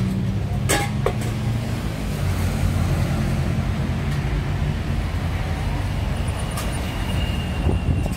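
Street traffic with a vehicle's engine running close by, a steady low rumble. A few sharp clinks come about a second in and again near the end.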